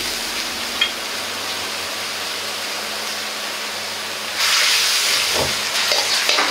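Steady hiss of a wok of seafood and vegetable sauce simmering over a gas burner. About four seconds in it grows louder as starch-water slurry is poured in from a metal ladle and stirred, with a knock of the ladle against the wok.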